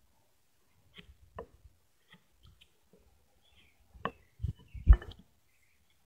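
Wide framing chisel paring end grain on a white pine tenon shoulder by hand: a few short, crisp cutting strokes about a second in and again around four seconds. Two louder knocks follow near the end, the second the loudest.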